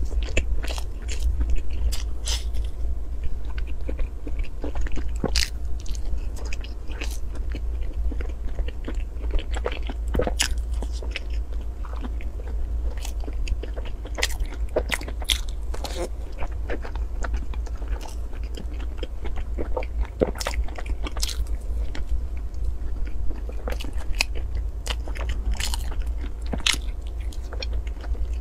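Close-miked eating of soft taro-paste filled sponge cakes: biting and chewing with many sharp, irregular mouth clicks, over a steady low hum.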